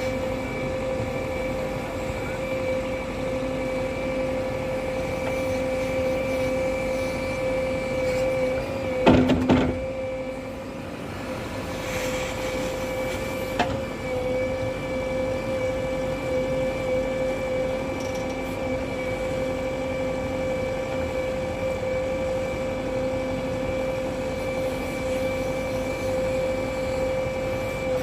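JCB 3DX backhoe loader's diesel engine running at a steady speed, with a loud metallic knock about nine seconds in and a sharp click a few seconds later.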